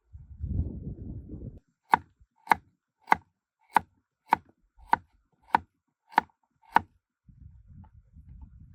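Nine sharp, even chops, about one every 0.6 seconds, after a low rumbling noise at the start; a fainter rumble follows near the end.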